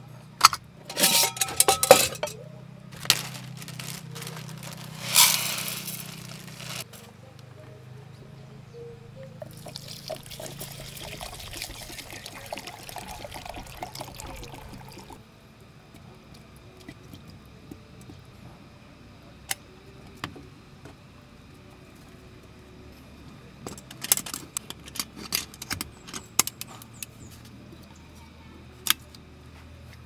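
A titanium pot and its lid being handled: sharp metal clinks and knocks in the first few seconds, then water pouring for about five seconds starting around ten seconds in, then another scatter of small clinks and taps near the end.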